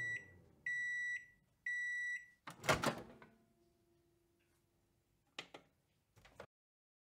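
Microwave oven finishing its cycle: the running hum dies away, it beeps three times, high and evenly spaced, and then the door clunks open. Two softer knocks follow near the end.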